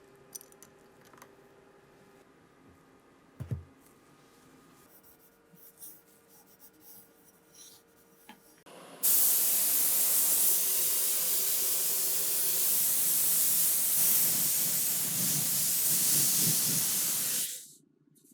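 A loud, steady spraying hiss of pressurised air or liquid. It starts abruptly about halfway through, runs for about eight seconds, then cuts off. Before it there are only a few faint clicks and a single thump.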